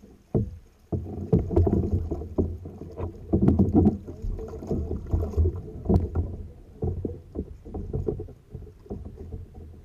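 Water splashing and sloshing around a kayak, with many irregular knocks and bumps from paddle and hull.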